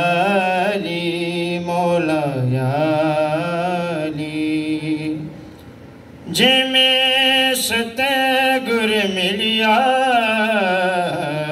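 A man singing a ginan, a devotional hymn, solo and unaccompanied, in long held phrases with a wavering, ornamented melody. He pauses for breath about five seconds in and resumes about a second later.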